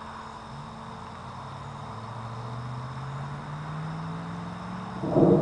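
A loud thunderclap from a nearby lightning strike breaks in suddenly about five seconds in. Before it there is a quieter outdoor background with a low hum that rises slowly in pitch.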